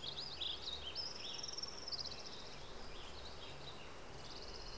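Faint, high-pitched chirps and short gliding calls from small birds, with rapid trills that come and go.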